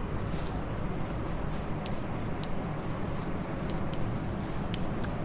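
Writing: a series of short, irregular scratchy strokes over a low, steady room hum, as something is written down during a pause in a lecture.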